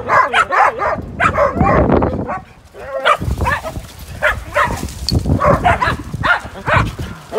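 Several dogs barking, many short barks overlapping one another, with a brief lull about two and a half seconds in.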